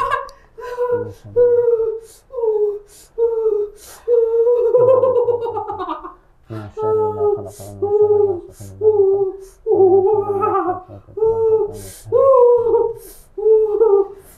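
A person's voice making short, pitched vocal sounds in a steady rhythm of about two a second, broken by a longer drawn-out sound about four seconds in and another near ten seconds.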